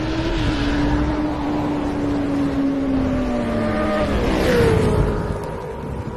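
Motorcycle engine sound effect: a steady engine note that slowly drops in pitch, then shifts with a rushing swell about four seconds in and fades toward the end.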